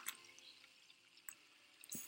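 Near silence, with a few faint short clicks about a second in and near the end.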